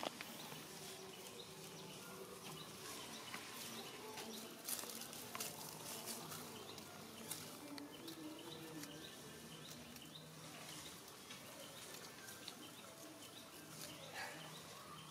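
Faint rustling and crackling of dry leaf litter, with scattered soft clicks, over a quiet outdoor background.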